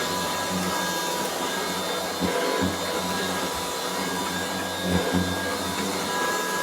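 Restored Kirby Classic III upright vacuum running with a steady motor whine and hum over carpet, its sound swelling a little every couple of seconds. The machine has new bearings and is on the quiet side for a Kirby.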